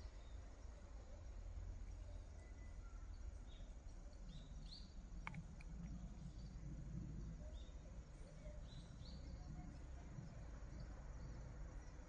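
Quiet forest ambience: scattered short, high chirps of small birds, clustered in the middle few seconds, over a faint steady low rumble.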